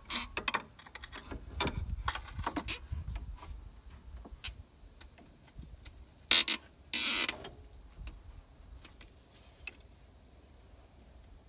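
Pliers levered on a pry bar twisting a PCV valve in its rubber grommet in the valve cover: small creaks and clicks of metal tool on rubber and plastic. A little past the middle come two short, louder scraping rasps as the valve works its way loose.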